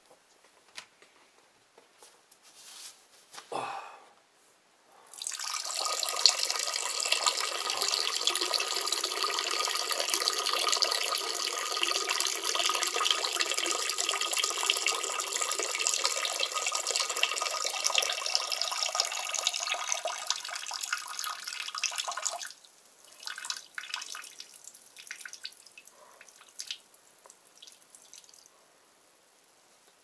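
Water running in a steady pour that starts about five seconds in and stops abruptly some seventeen seconds later, with a few small drips and splashes before and after.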